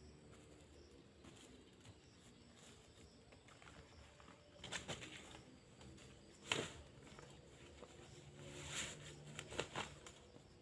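A few short bursts of rustling and crunching over a faint background, the loudest a sharp crack about six and a half seconds in.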